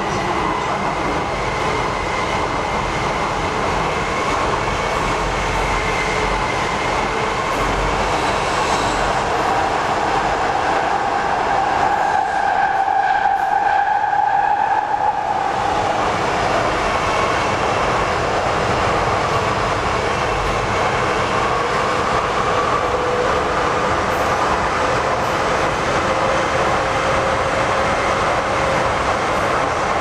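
Docklands Light Railway train running through a tunnel: steady wheel-on-rail rumble with an electric traction motor whine that glides up in pitch as it gathers speed. The whine is loudest for a few seconds around the middle.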